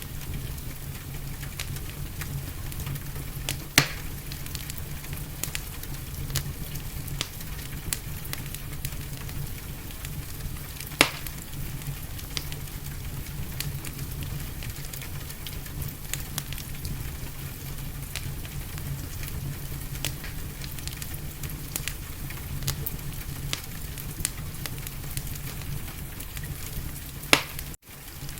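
Wood fire crackling, with many small pops and a few much louder snaps, over a steady low rumble and hiss. The sound cuts out for an instant near the end.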